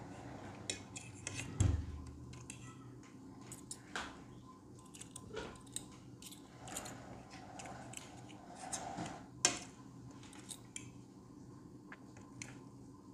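Metal forks clicking and scraping against a plate while pancakes are cut and picked up, with close chewing sounds between the clicks. A dull thump about one and a half seconds in is the loudest sound.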